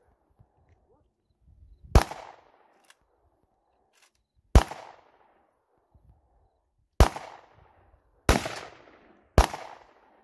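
Five single gunshots, each a sharp crack with a short echoing tail. They come about two and a half seconds apart at first, then quicker, about a second apart, near the end.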